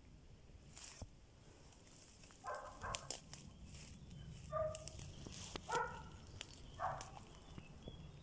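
A dog barking several times in short barks, starting about two and a half seconds in, over scattered light clicks and crackles.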